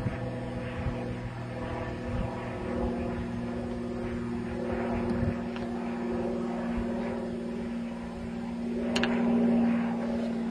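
Diesel locomotive engine running with a steady, even drone as the locomotive travels along the line, getting louder for a moment near the end.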